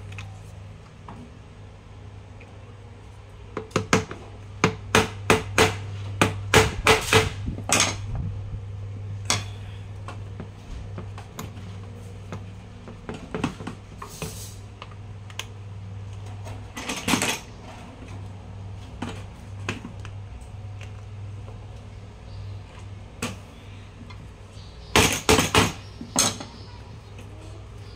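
Hammer striking a metal hex key set in a cordless grass trimmer's cutting head, sharp metallic clinks: a quick run of about ten near the start, a few scattered blows in the middle, and another tight cluster near the end. A steady low hum runs underneath.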